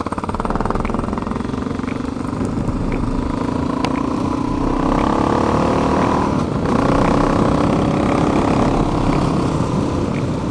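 Honda XR650L single-cylinder dirt-bike engine with an FMF exhaust, pulling under throttle on a gravel road. Its pitch climbs about four to six seconds in, dips briefly, then picks up again. It runs cleanly on new jetting, without sputtering.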